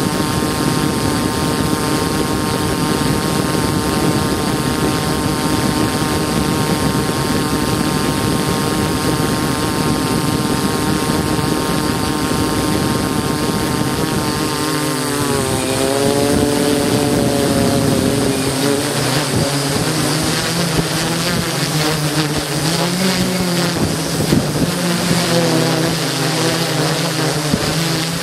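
DJI S800 hexacopter's six electric motors and propellers whining steadily in a hover. About halfway through the pitch drops and wavers, then settles lower, as the motors throttle back and the copter descends.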